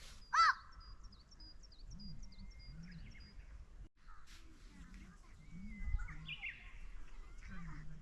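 Wild birds calling: one loud, short call about half a second in, followed by a quick run of high repeated chirps, with more calls later.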